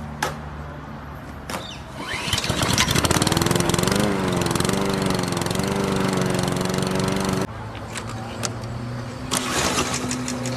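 An engine-like drone starts with a rising pitch about two seconds in, runs loud with a slightly wavering pitch for about five seconds, then cuts off abruptly.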